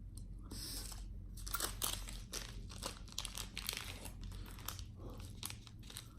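A small plastic seasoning packet crinkling and being torn open: a dense run of crackling and crunching that starts about half a second in.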